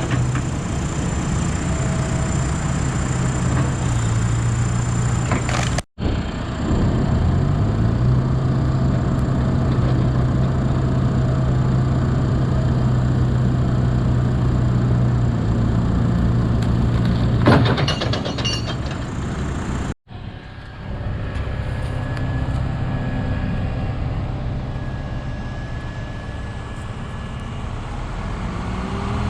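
Heavy diesel machinery engines running steadily under load, across several cut-together shots; after the first cut the engine revs up and holds. A sharp crack sounds about two-thirds of the way through.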